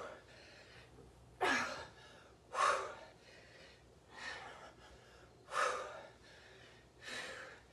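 A woman breathing hard with exertion: five forceful exhales, about one every second and a half, in time with her dumbbell ground-to-press reps.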